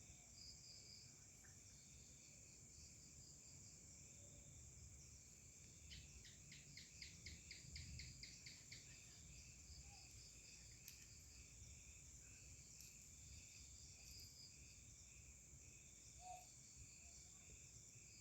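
Faint chorus of crickets and other insects: a steady high-pitched drone with repeating pulsed trills. About six seconds in, a louder run of rapid pulses sounds for about three seconds.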